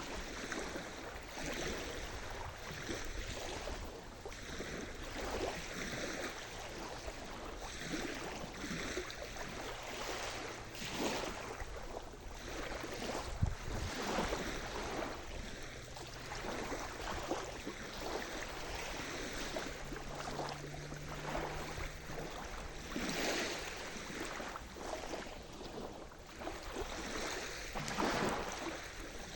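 Sea surf: waves breaking and washing up the shore again and again, a steady rush that swells and falls back every few seconds.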